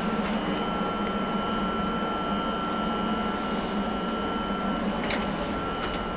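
Star Lift traction lift at a landing: a steady electrical hum with a thin whine while the car doors slide open, the lower hum stopping about five seconds in, then a couple of light clicks.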